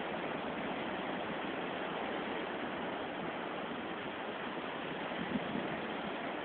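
Steady rush of wind over the microphone during paraglider flight, with a faint short bump about five seconds in.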